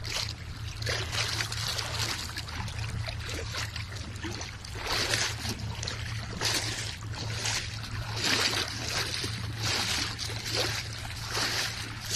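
Shallow seawater splashing and sloshing in surges about once a second, over a steady low hum.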